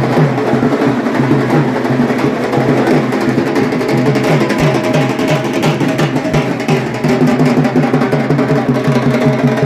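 Drums playing a fast, steady rhythm over the din of a large crowd.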